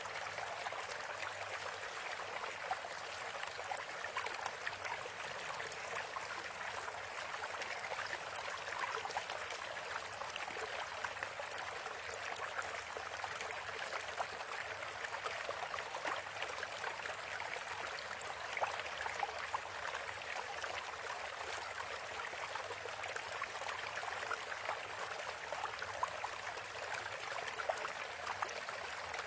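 Steady running water with fine crackles throughout, like a small stream.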